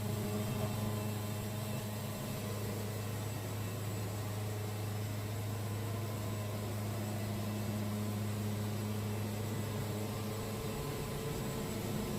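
Portable band sawmill's engine running at a steady, even hum.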